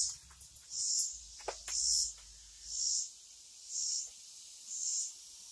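An insect calling in the background: a high, hissy buzz repeated evenly about once a second.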